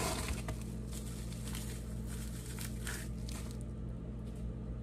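Packaging being torn open and rustled by hand: a run of crackles and snaps that dies away after about three and a half seconds, over a steady low hum.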